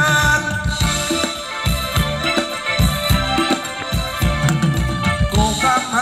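Live band playing a Thai ramwong dance tune: an instrumental passage with a steady beat and held melody lines.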